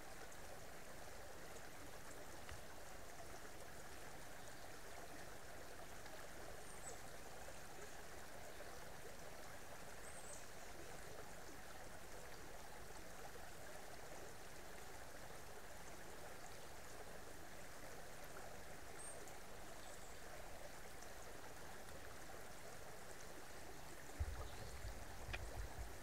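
Creek water running steadily, a faint even rush, with a few faint short high chirps over it. Near the end a low rumble comes in.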